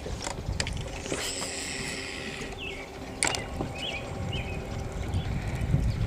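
Fishing reel on a cast: the spool whirs for about a second and a half, a sharp click follows about three seconds in, and then the reel is cranked.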